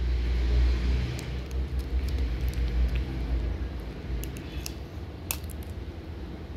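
A low rumble, loudest in the first second or two and slowly fading, with a few faint clicks near the end.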